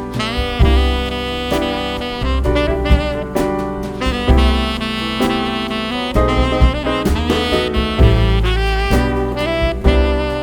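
Instrumental jazz music with a saxophone lead over drums and bass.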